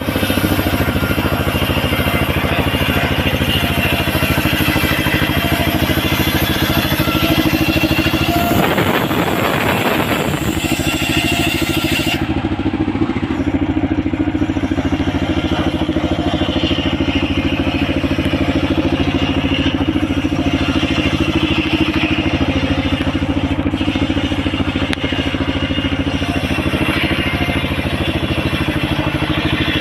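Homemade engine-driven circular sawmill running steadily, its blade ripping through a coconut-wood log. The engine hum carries on throughout, with a rougher, noisier stretch about nine seconds in.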